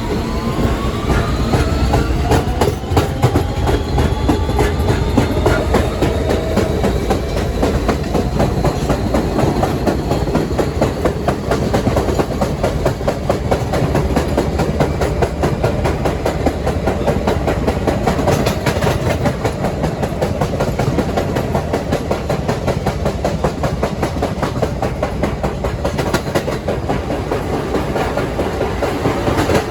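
R160B Siemens subway train accelerating, its traction motors whining upward in pitch over the first few seconds, then running at speed with a steady rumble and rapid clickety-clack of wheels over rail joints.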